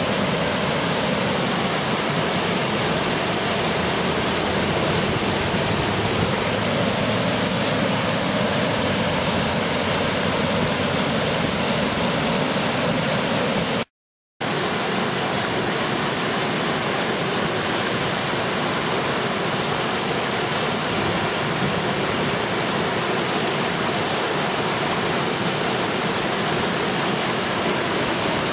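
Floodwater of the South Platte River rushing steadily over a submerged water break, churning into whitewater rapids. The sound drops out for about half a second halfway through, then resumes unchanged.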